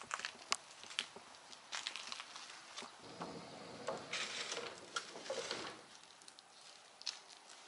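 Footsteps crunching on wet gravel, then a longer scraping, shuffling stretch as they pass through a doorway onto a concrete floor.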